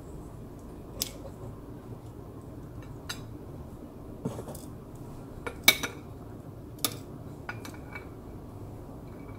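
Metal kitchen tongs tapping and clinking against a ceramic plate as pieces of crisp-skinned fried pork belly are set down on it: irregular sharp clinks, the loudest just past halfway, a few with a short ring.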